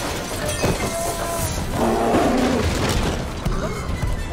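Film fight sound effects: a heavy crash as a cabinet and wall fittings smash apart, with debris shattering and scattering, followed by further thuds.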